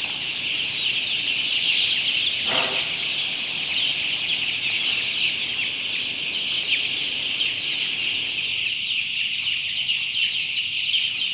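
A huge flock of six-day-old broiler chicks peeping continuously, thousands of short high calls overlapping into one steady chorus.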